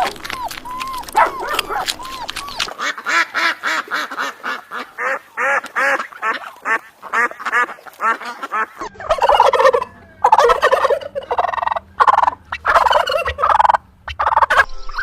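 Domestic poultry calling. Short pitched calls come in a rapid run, several a second, then turn into louder clustered calls from about nine seconds in.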